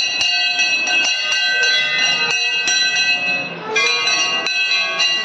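Brass temple bell hung at a shrine entrance, rung by hand with quick repeated strikes, about three a second, each stroke clanging over a long, shimmering ring. About four seconds in, a second bell with a different pitch starts ringing.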